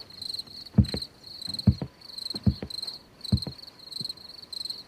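Cricket chirping steadily in short, even pulses, about three a second. Soft knocks come in pairs under it, about once every second.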